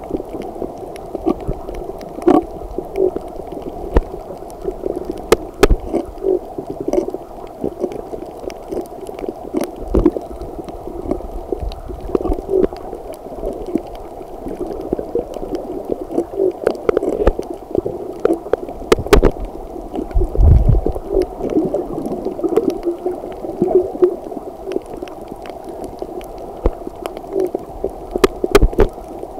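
Muffled underwater sound from a camera held under water: a steady dull wash of water noise, with scattered sharp clicks and a louder low thump about twenty seconds in.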